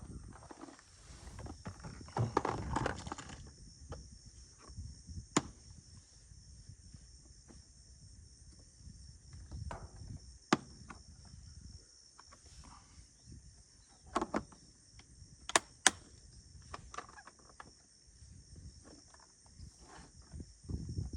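Steady high-pitched insect chorus over a low rumbling noise, with a few brief rustles and several sharp clicks, two of them close together near the end.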